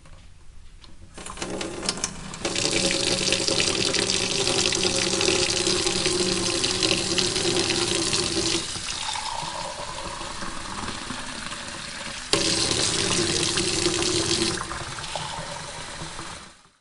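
Kitchen tap running into a sink: the water rush builds over the first couple of seconds and holds steady, with a tone that slowly rises in pitch through the middle stretch. It gets suddenly louder about twelve seconds in, drops back, and stops just before the end.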